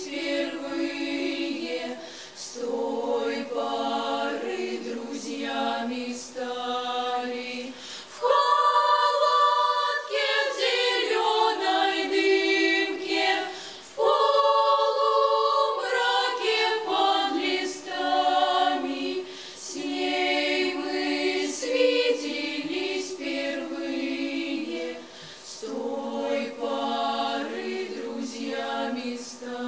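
Mixed youth choir singing a cappella, with no instrumental accompaniment. The phrases move in close chords, and the singing swells into louder held chords about eight seconds in and again about fourteen seconds in.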